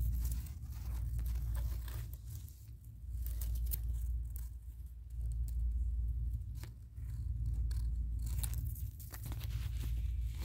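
Dry grass and twigs crackling and rustling in short, irregular snaps as a snake moves through them. Under this runs an uneven low rumble of wind buffeting the microphone.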